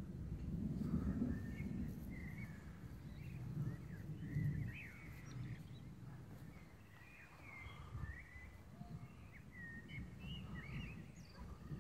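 Songbirds singing, with many short chirps and quick rising and falling notes. Under them runs a low, uneven rumble that swells twice in the first half.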